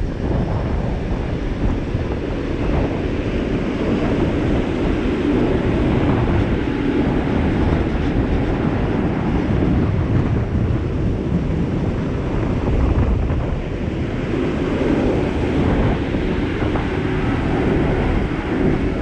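Wind buffeting the microphone: a steady low rumble with no breaks.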